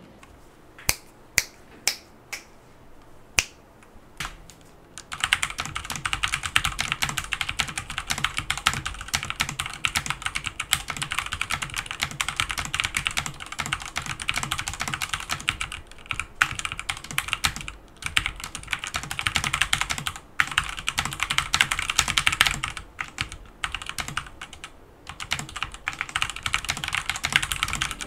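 Deepcool KB500 mechanical keyboard, with stock Otemu red linear switches, ABS keycaps and an aluminium plate, being typed on. A few single keystrokes at first, then from about five seconds in, steady fast typing with a few brief pauses.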